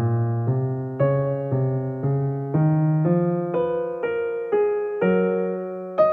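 Background music: piano playing a steady run of notes, about two a second, each note ringing and fading before the next.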